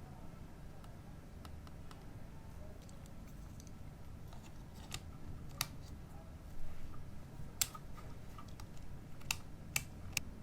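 Scattered light clicks and taps over a low steady room hum, coming more often in the second half.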